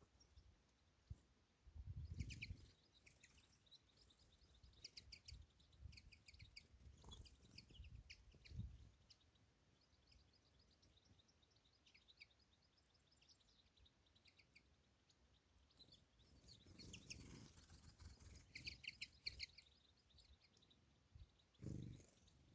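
Faint, quick twittering chirps of small songbirds in scattered bursts, busiest near the start and again past the middle, with low rumbles of wind on the microphone now and then.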